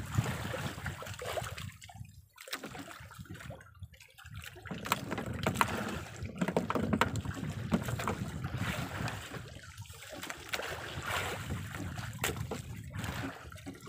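Sea water sloshing against a small outrigger boat with wind buffeting the microphone, and light clicks and rustles as the handline is worked by hand.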